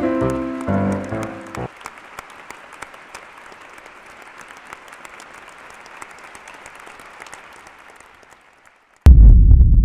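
Music breaks off abruptly, leaving applause that fades away over several seconds. Just before the end a loud, deep rumble starts suddenly.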